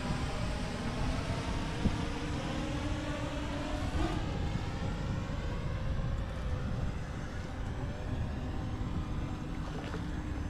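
Wind rumbling on the microphone over a steady, even-pitched motor hum.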